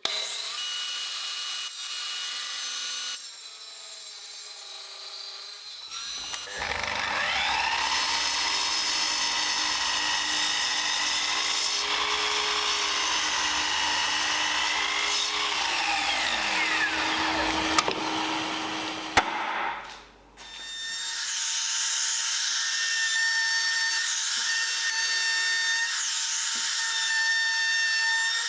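Power tools cutting and working plywood, in several abruptly changing segments. One motor spins up about six seconds in and winds down around nineteen seconds, and a high steady whine runs over the noise of the cutting.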